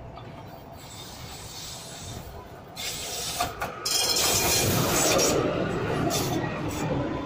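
Tram approaching and passing close on its rails: the running noise swells about three seconds in, with a couple of sharp clicks, then the wheels rolling and the cars rattling go by loudly for about three seconds before fading a little near the end.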